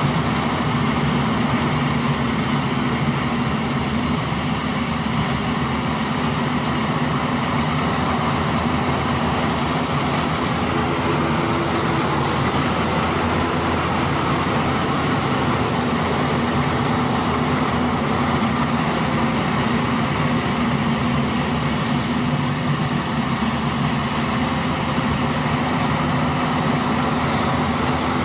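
DR 40 E combine harvester's engine and machinery running at a steady load, a continuous mechanical drone that does not change.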